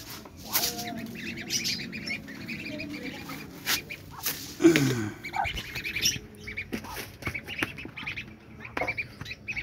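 Domestic ducklings peeping: many short, high calls overlapping throughout. Scattered clicks and knocks, and a brief low falling sound about halfway through, which is the loudest moment.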